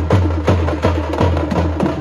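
Loud dance music with a fast, heavy drum beat, nearly three beats a second, over a deep steady bass.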